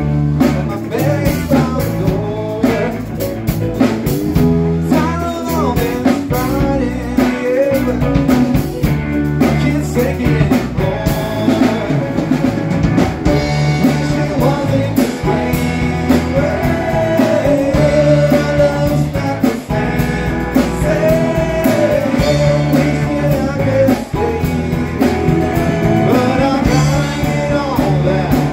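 Live blues-rock band playing an instrumental passage: an amplified harmonica carries a wavering lead with bent, held notes over electric guitar, bass and drum kit with a steady beat.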